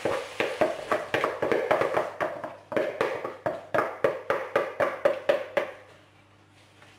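Spatula tapping quickly and repeatedly against a plastic mixing bowl, about three or four knocks a second, to shake out thick cake batter. The tapping stops about a second before the end.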